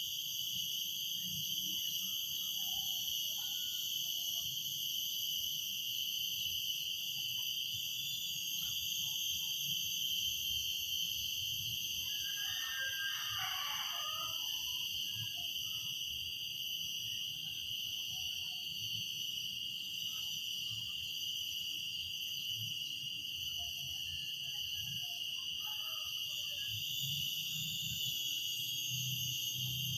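Cicadas (tonggeret) buzzing in a steady, continuous high-pitched chorus. A short burst of lower chirps comes about twelve seconds in.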